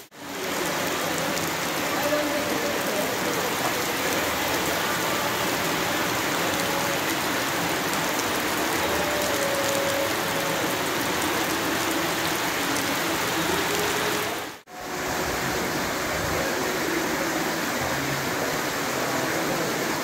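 Heavy rain mixed with hail pelting stone paving and metal railings: a dense, steady hiss that breaks off briefly about fifteen seconds in.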